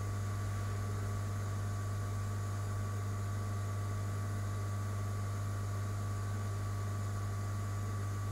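Steady low electrical hum with a constant hiss, unchanging throughout.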